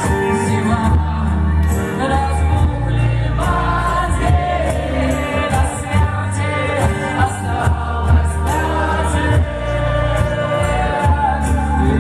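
A live band playing a song with a sung vocal line over drums and a steady bass.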